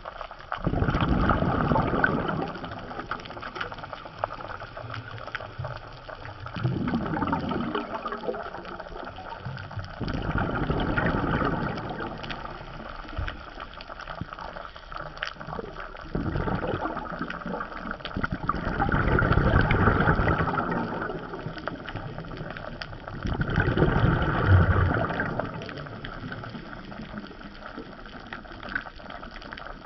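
Underwater water noise: a steady rush with louder surges of a second or two that come every few seconds, as the water moves around the submerged camera.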